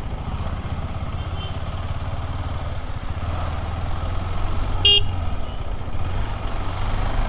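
KTM 390 Adventure X's single-cylinder engine running steadily at low speed in slow traffic, heard from on the bike. A short horn toot sounds about five seconds in.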